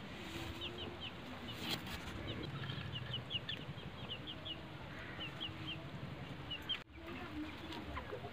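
Faint chickens in the background: many quick high chirps repeating throughout, with soft low clucks in the middle.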